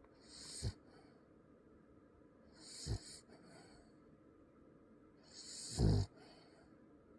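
A sleeping dog snoring: three snores about two and a half seconds apart, each a hissing breath that swells and ends in a short low snort. The third is the loudest.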